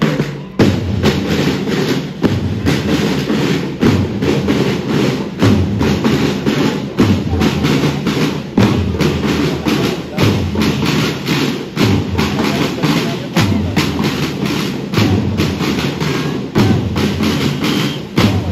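A group of side drums beaten together in a steady marching rhythm, with heavier low beats recurring regularly through the pattern.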